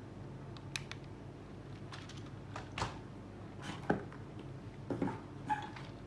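Handling noises: irregular light clicks and knocks, about eight of them spread unevenly, the loudest about four seconds in, over a steady low hum.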